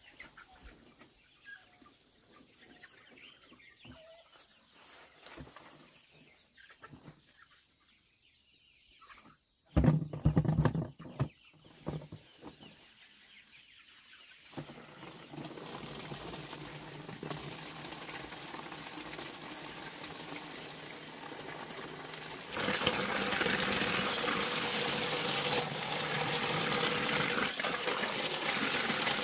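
Water from a garden hose splashing into a plastic bucket. It starts about halfway through and gets louder and fuller a few seconds before the end. A steady high insect trill runs underneath, and a few loud knocks and clatters come just before the water starts.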